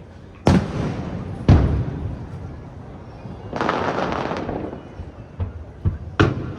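Aerial fireworks shells bursting: two loud booms about a second apart, then about a second of hissing crackle, then a quickening run of sharper bangs near the end.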